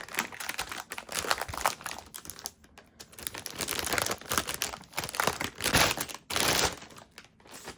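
Motherboard packaging being handled, crinkling and rustling in irregular bursts with small clicks.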